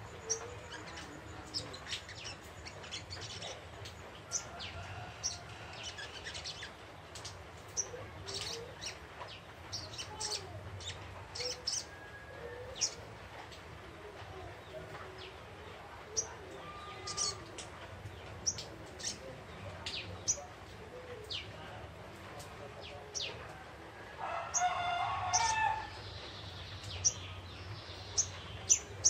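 Young wild sogok ijoan bird twittering, giving short, sharp, high chirps at irregular intervals. A louder, lower call lasting about two seconds comes near the end.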